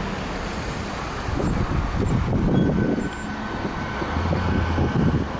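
Outdoor road traffic noise: a steady rumbling haze of passing vehicles, with a low engine drone about four seconds in.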